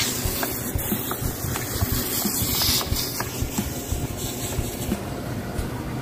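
Hose spraying water as a worker cleans a drained ornamental waterfall channel: a steady hiss that swells about two to three seconds in, with wind rumbling on the microphone underneath.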